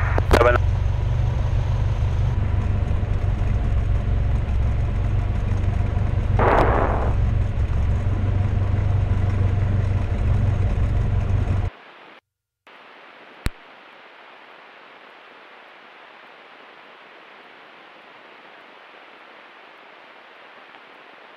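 Cessna 172 Skyhawk's piston engine and propeller running with a steady low drone. About twelve seconds in the drone cuts off abruptly, leaving a faint steady hiss with a single click.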